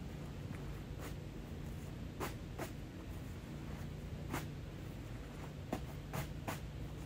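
Short scratchy rustles of a sheet being folded by hand on the ground, about seven of them spread unevenly over a few seconds. A faint steady low hum runs underneath.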